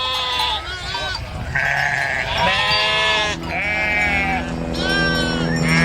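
Sheep bleating repeatedly, about six wavering calls one after another. A steady low hum starts about halfway through and runs on under the calls.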